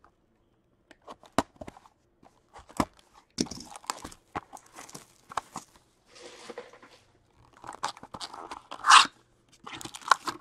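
Plastic wrap being torn and crinkled off a 2020-21 Upper Deck Allure hockey card hobby box, and its cardboard flap opened: a string of irregular crackles, rustles and taps, loudest about nine seconds in.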